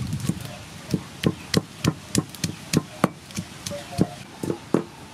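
Wooden pestle pounding garlic and chilies in a mortar: steady dull knocks about three a second, stopping shortly before the end.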